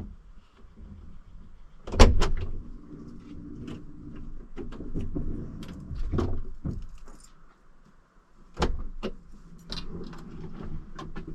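Handling noises: a scattered series of knocks, clicks and rattles, the loudest a sharp thump about two seconds in.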